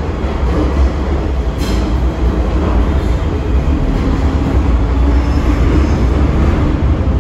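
MTR M-train metro car running at speed, heard from inside: a heavy low rumble of wheels on track, with the traction motors' faint steady whine, the 'ghost howl' this car is known for. A single sharp click comes about one and a half seconds in.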